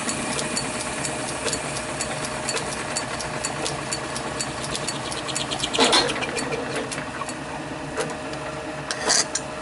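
Small metal lathe running, taking a light turning cut on a brass piston to bring it to size for its cylinder bore: a steady motor and gear hum with a fast, regular ticking. Two louder knocks come through, one about six seconds in and one near the end.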